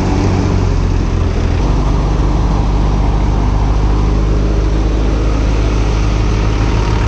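A tractor-driven multicrop thresher running: the steady drone of the tractor engine under the clatter and rush of the thresher's drum and sieves. The engine note shifts slightly about one and a half seconds in.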